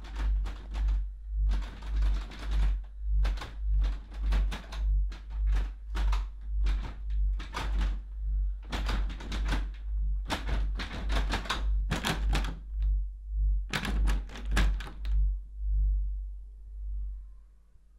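Bursts of rapid knocking and rattling at a front door over a low throb that pulses nearly twice a second. Near the end the knocking stops and the throb fades away.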